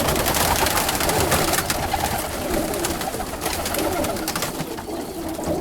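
Roller pigeons cooing in a loft, with scattered clicks and rustles from the birds moving about.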